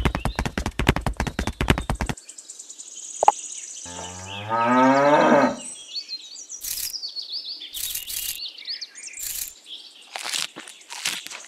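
A cow mooing once, a long call about four seconds in, after a quick run of rapid clicking. High bird chirps and a few clicks follow.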